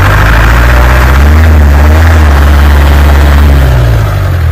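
ARO 4x4's engine working under load as it pushes through deep snow, loud and close, the revs rising and falling around the middle and easing off a little near the end.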